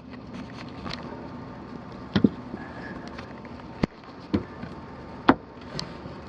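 Scattered knocks and clicks of a person moving about in an attic, about five over a few seconds, over a steady low hum.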